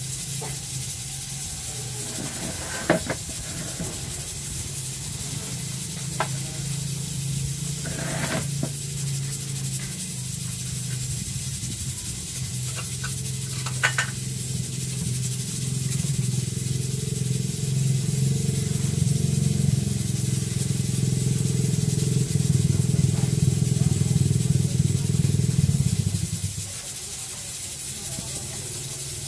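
A steady low machine hum that grows louder in the second half and stops suddenly near the end, with a few light clicks of a spoon and plate.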